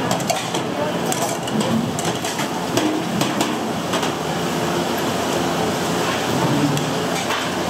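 Scattered sharp knocks and clatter of kitchen work over a steady hum, with voices in the background.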